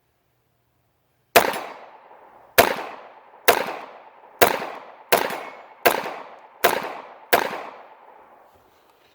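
Eight 9mm gunshots fired in an unhurried semi-automatic string, starting about a second and a half in, each sharp crack trailing off in echo.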